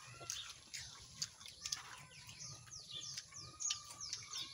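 Birds chirping: a quick series of short, high chirps, each falling in pitch, coming thicker in the second half, with a few sharp clicks among them.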